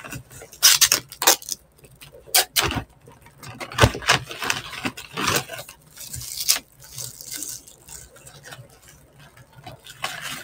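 Intermittent clicks and clatter of food containers and cutlery being handled during a meal, a few sharp knocks among them, with quiet gaps between.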